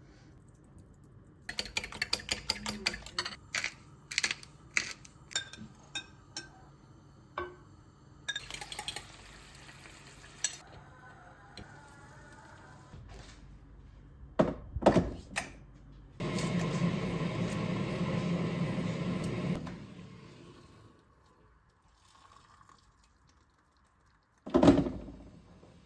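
Kitchen handling sounds: dishes and utensils clinking and tapping in quick strokes, then a few seconds of steady rushing noise and a single thump near the end.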